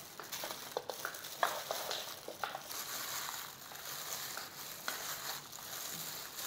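Gloved hand squeezing and mixing sliced raw beef with vegetables and enoki mushrooms in a stainless steel bowl for bulgogi: soft squelches and sharp little clicks in the first three seconds, then quieter handling.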